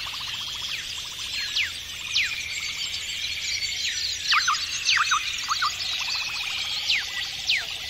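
Several birds singing: repeated quick downward-sweeping whistles, with a short rattling trill twice, over a steady high background chorus.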